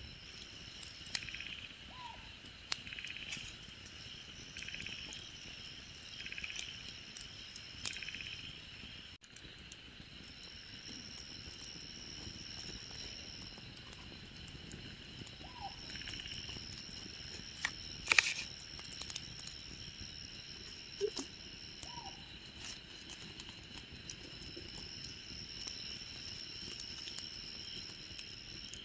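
Night-time insect chorus: a steady high-pitched trilling that pulses in regular swells at first, with scattered sharp clicks and one louder snap about two-thirds of the way through.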